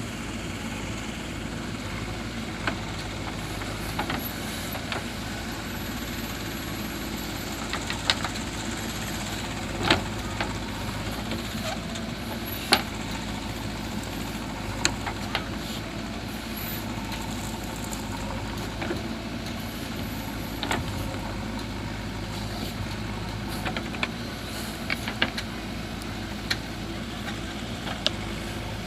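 Diesel engine of a JCB 3DX backhoe loader running steadily, with sharp knocks and clanks scattered through at uneven intervals.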